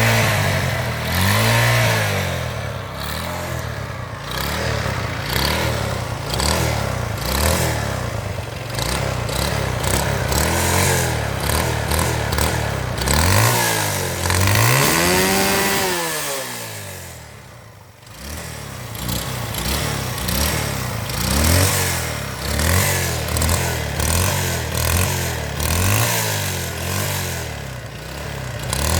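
Roadmaster CD200 motorcycle engine revved over and over in short throttle blips, its pitch rising and falling with each one. About halfway there is one longer rev, after which the engine sinks briefly to a low idle before the blips start again. The bike is said to have a bad engine noise.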